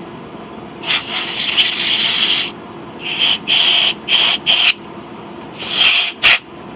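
Compressed-air blow gun blowing out the passages of a freshly cleaned small-engine carburetor. There is one long hiss of about a second and a half, then a string of short blasts that stop and start.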